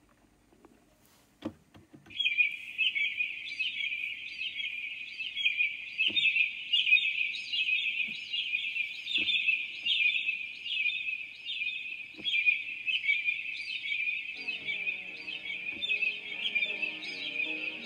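A chorus of birds chirping starts suddenly about two seconds in and keeps up steadily, with a few soft knocks along the way. Music comes in underneath near the end.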